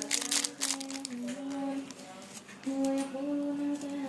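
A person humming a simple tune of held notes that step up and down. Crinkling of plastic or paper is heard in the first second.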